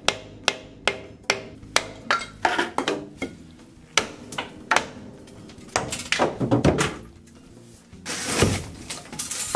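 A hammer striking a cast iron drain pipe, knocking out a cut section of the leaking stack. The blows are sharp and metallic, about two a second for the first few seconds, then more scattered. About eight seconds in there is a longer, louder clatter.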